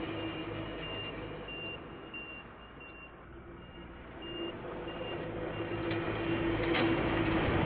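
Repeated high electronic beeps, a little under two a second, over a low rumble and hum that grows louder from about halfway through as a train approaches. There is one sharp click near the end.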